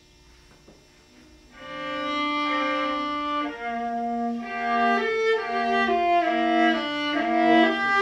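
Viola bowed in a slow passage of double stops, two strings sounding together, starting about a second and a half in with a long first chord, then changing notes about twice a second.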